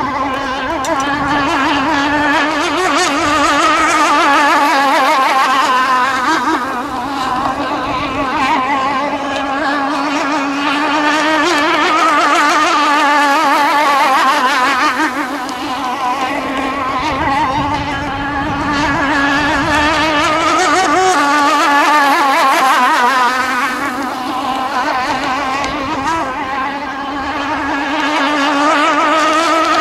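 Modified 29.5 cc Zenoah two-stroke engine of a radio-controlled racing boat running at speed. Its steady engine note swells and fades in loudness about every eight seconds as the boat passes.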